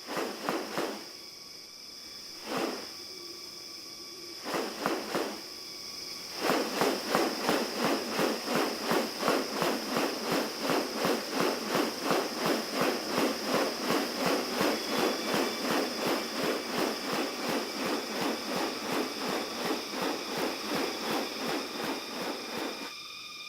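Rainforest animal sounds: a steady high insect drone, a few separate short calls, then from about six seconds a fast, even series of rasping pulses, three to four a second, that stops shortly before the end.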